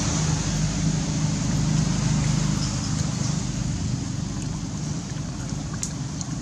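A steady low hum like an engine running, under a constant hiss, with a few faint ticks near the end.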